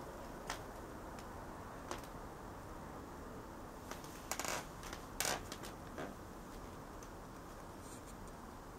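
Faint steady background hiss with a few short clicks and rustles, most of them bunched together about four and a half to five and a half seconds in.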